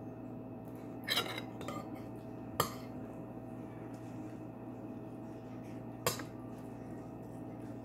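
Metal spoon clinking and scraping against a plate of shrimp and rice, a few sharp clinks: a short cluster about a second in, one at about two and a half seconds, and one at about six seconds.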